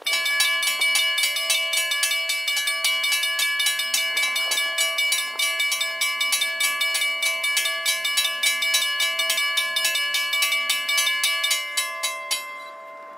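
Railroad grade-crossing bell ringing with rapid, even strokes, a clanging metallic ring that fades out near the end.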